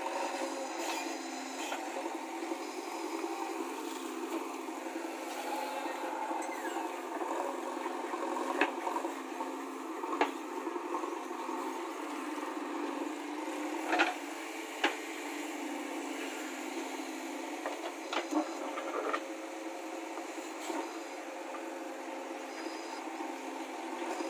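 JCB 3DX backhoe loader digging with its diesel engine running steadily, broken by a few sharp knocks and clanks from the bucket and arm working the ground.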